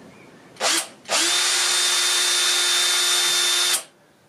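Power drill run in a short burst, then again for about two and a half seconds at a steady speed, boring an eye hole.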